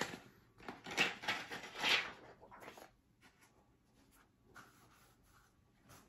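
Rigid cardboard presentation box being handled and opened, with two sliding, scraping swishes about one and two seconds in, then faint rustles and light taps.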